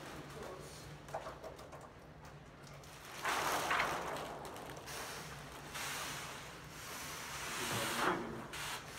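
Hand sprayer hissing in three bursts of about a second each, starting a little over three seconds in, wetting the tank glass for film installation. A low steady hum runs underneath.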